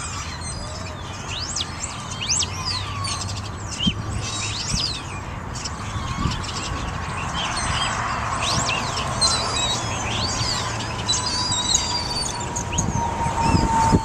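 Many birds chirping in quick, high calls. In the second half a distant siren's steady tone comes in and grows louder.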